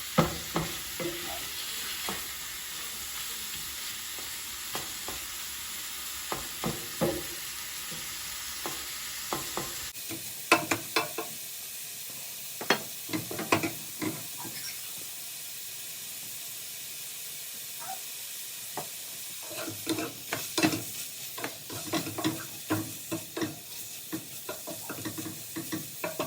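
Shrimp sizzling in olive oil in a skillet, a steady hiss, while a utensil stirs them and knocks and scrapes against the pan in irregular clicks. The stirring is busiest in two spells, about a third of the way in and again near the end, with a calmer stretch of plain sizzling between.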